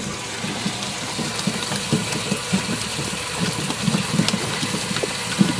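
Cast net being hauled aboard and spilled onto a boat deck full of shad, with a run of soft, irregular thumps.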